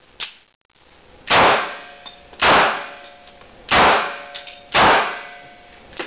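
Four pistol shots from an HK handgun, fired about a second apart, each sharp crack followed by a short ringing tail.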